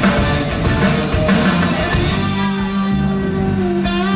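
Live rock band playing an instrumental passage: electric guitars over bass and drums. The drum hits drop back about halfway, leaving held guitar and bass notes, with a guitar string bend near the end.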